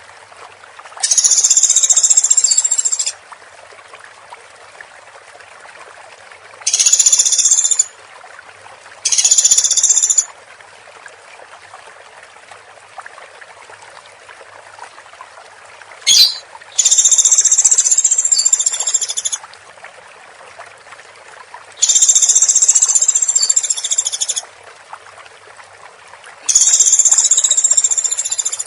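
Woodpecker calling in rapid, high-pitched trilling bursts, six of them, each one to two and a half seconds long with pauses of a few seconds between, over a steady background hiss. A single sharp click comes just before the fourth burst.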